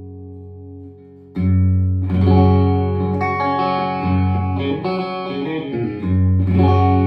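Customised Stratocaster electric guitar being played through an amp. A chord rings out and fades, then about a second and a half in a new chord is struck, followed by a run of changing notes, and another chord is struck near the end.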